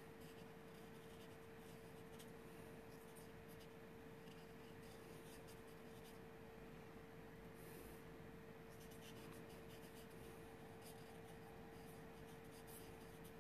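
Faint, irregular strokes of a Copic marker on paper while shading a drawing, over a steady faint hum.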